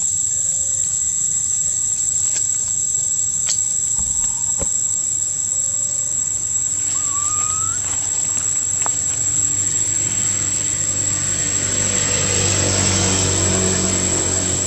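Steady high-pitched drone of insects in the forest. From about ten seconds in, the low hum of a passing motor vehicle grows louder, and a short rising chirp sounds once near the middle.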